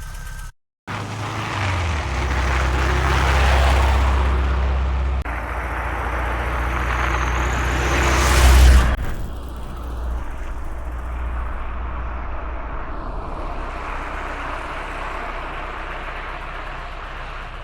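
Volkswagen Vanagon Syncro pulling away and accelerating. The engine climbs in revs with two step changes, the louder one just before the second, then runs steadily at speed.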